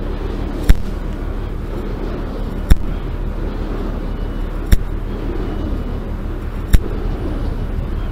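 Steady hiss and rush of band noise from an HF amateur radio receiver tuned to the 20 m band between contacts, with a sharp click about every two seconds.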